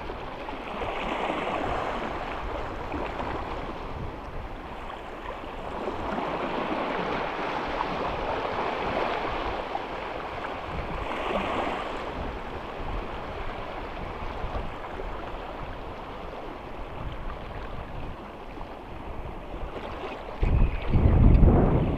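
Small sea waves washing and lapping around shallow rocks, swelling and easing every few seconds, with wind noise on the microphone. Near the end comes a loud, short, low rumble of wind buffeting the microphone.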